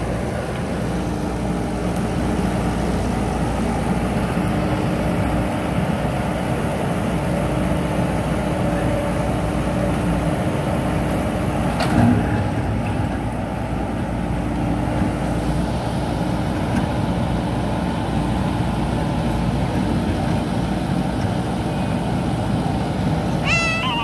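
JCB 3DX backhoe loader's diesel engine running steadily under working load, with a faint steady whine, while the backhoe works through brick rubble. There is a single short knock about halfway through.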